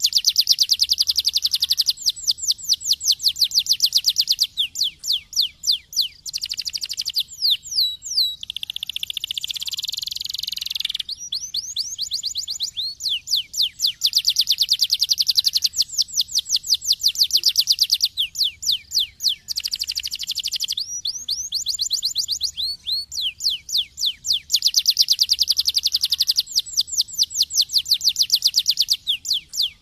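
Domestic canary singing long, fast trills of rapidly repeated high notes, phrase after phrase with short breaks between them. About nine seconds in there is a denser, rolling passage.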